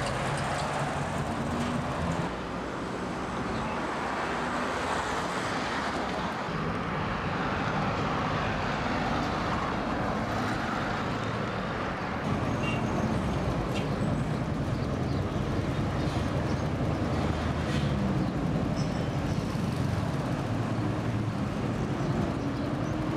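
Steady street traffic noise: vehicle engines running and cars passing, a little louder about halfway through.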